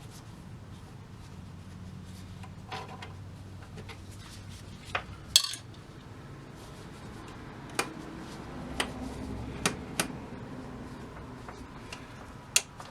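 Scattered sharp metallic clicks and clinks of metal parts and tools being handled on a workbench, about eight in all, the loudest about halfway through, over a low steady hum.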